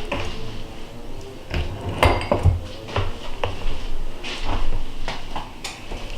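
Cookie cutter being pressed through rolled sugar-cookie dough, knocking and clicking against the countertop several times at irregular intervals.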